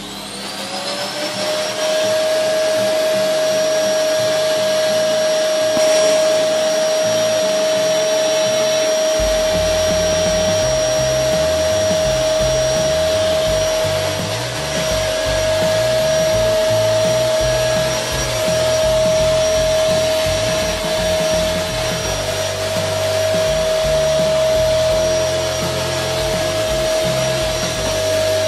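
An electric appliance motor switched on as its plug goes into the socket: it spins up with a rising whine over about a second, then runs steadily with a high whine over a hiss.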